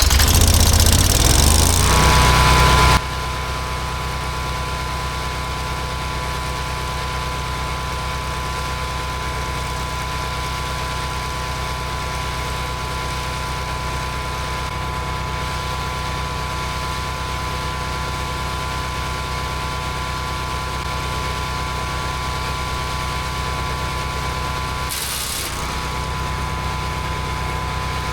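MechMaxx B200 8-inch gas wood chipper, louder and rough under load for the first three seconds, then settling into a steady run with an even whine. A short loud burst about 25 seconds in, with the engine dipping briefly, is something passing through the chipper.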